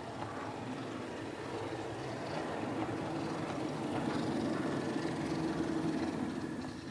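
OO gauge model diesel locomotive hauling two coaches along the track: a steady electric motor hum with wheel and rail rumble. It grows louder toward the middle and falls away at the end.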